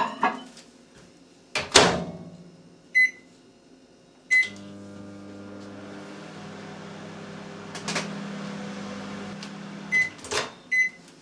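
Microwave oven heating a jug of milk. The door is shut with a knock and keypad beeps start it, then it runs with a steady hum for about five seconds. The hum stops with beeps, and the door is opened with a click near the end.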